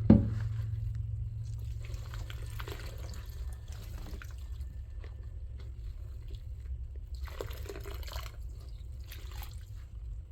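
Bath water dripping and lapping gently in a tub around a soaking cat, with scattered small drips and a brief sharp thump right at the start. A steady low hum runs underneath.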